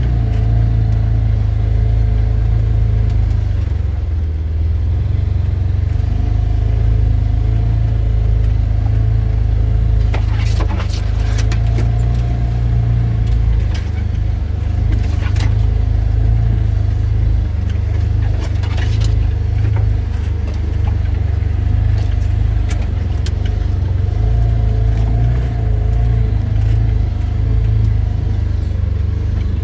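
Vehicle engine running low and steady with a deep rumble, heard from inside the cab while driving slowly over a rough, leaf-covered woodland trail. A cluster of sharp snaps and ticks comes around the middle, from sticks and branches breaking under or brushing against the vehicle.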